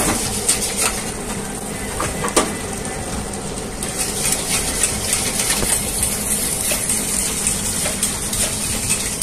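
Wire whisk stirring maize flour and water in a stainless-steel pot, ticking and clinking against the pot's sides now and then, over a steady hiss.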